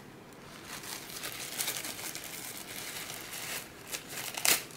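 Thin white packaging wrap crinkling and rustling as it is handled and pulled off a round smartwatch, with one sharp, louder crackle near the end.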